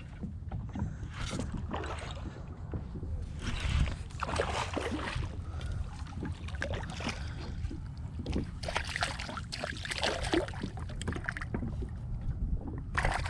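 Water splashing in irregular bursts around a kayak, over a steady low rumble of wind on the microphone.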